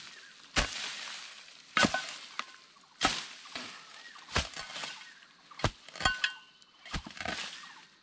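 A hand hoe chopping into an earth bank: a sharp thud as the metal blade bites into soil and roots, about once a second with a quick double stroke near the end, each strike followed by a brief rustle of loosened earth.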